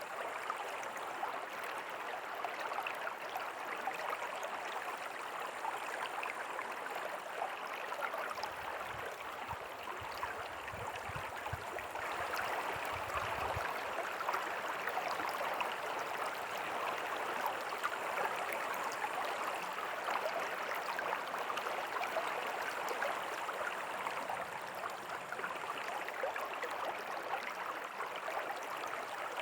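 River water flowing steadily: a continuous, even rush of water.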